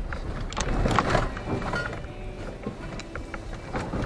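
Road noise inside a vehicle's cabin as it drives over a rough, bumpy snow-covered dirt track: a steady low rumble broken by repeated knocks and rattles as the vehicle jolts.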